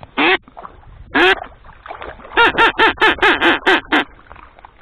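Duck quacking loud and close: a single quack just after the start, another about a second in, then a fast run of about eight quacks, some five a second, that stops about a second before the end, like a hen mallard's calling run.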